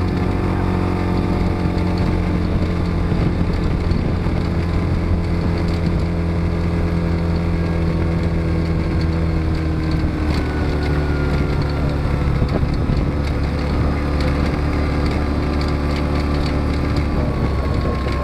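An engine running steadily with a low droning hum, its pitch shifting slightly about ten seconds in, and a faint higher tone slowly falling toward the end.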